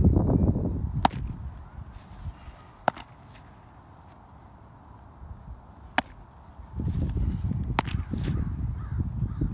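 Baseballs popping into a catcher's mitt: four sharp, short pops a second or three apart. A low wind rumble on the microphone fills the first second and comes back from about seven seconds in.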